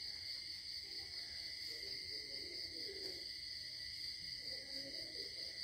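Faint background of insects chirring steadily at two high pitches, with faint indistinct low sounds underneath.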